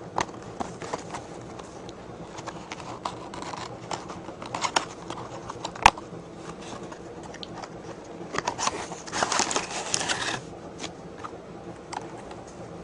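A toy's retail box and its packaging being opened by hand: scattered clicks and taps, a sharp snap about six seconds in, then a couple of seconds of crinkling and tearing near the end.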